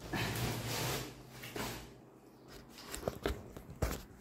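Rustling and crinkling of a woven plastic sack being handled, followed by a few sharp clicks and knocks near the end.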